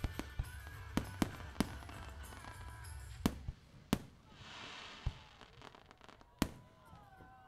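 Aerial fireworks shells bursting: a string of about nine sharp bangs at uneven intervals, with a short hissing spell about four seconds in. Music plays underneath.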